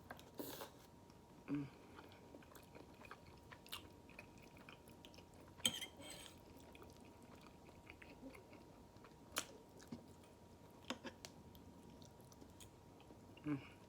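Faint chewing and mouth sounds of a person eating, with scattered sharp clicks, the loudest a little over halfway through.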